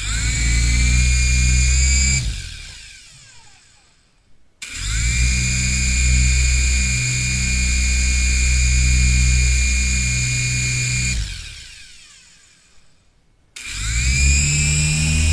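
Toy engine's small motor whirring at a steady high pitch under a low pulsing hum. It cuts out about two seconds in and winds down to silence, starts again with a quick rising whine, runs for several seconds, winds down again, and starts up once more near the end.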